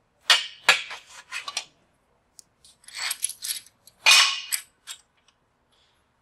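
A square steel tube set down on a metal modular welding table and a table clamp worked down onto it: a series of metallic clanks and clinks in two clusters, the loudest about four seconds in.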